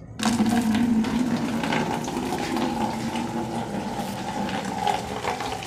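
Water running from an outdoor tap into a plastic laundry basin, starting abruptly just after the start and running on steadily as the basin fills.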